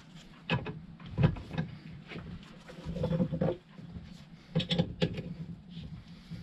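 Sharp metallic clanks and knocks of tools and parts being handled while a motorcycle rear shock absorber is dismantled, in a few separate groups, with a short rough scraping stretch about three seconds in.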